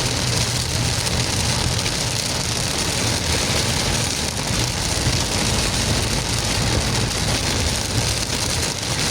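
Heavy rain on a moving car: a steady hiss of rain over a low, steady rumble of engine and road noise.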